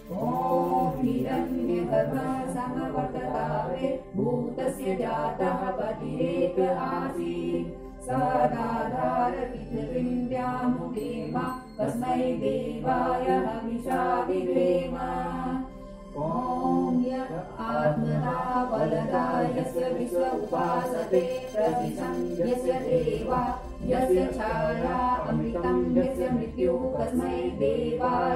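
A man's and a woman's voices chanting a prayer together in unison, with no instruments, read aloud from a book, in sung phrases broken by short pauses every few seconds.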